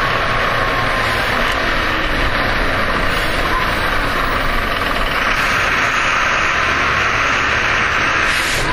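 Interior of a Jelcz M121M city bus, its diesel engine running with a steady rumble and noise. The noise grows brighter about five seconds in, and a brief high hiss comes near the end.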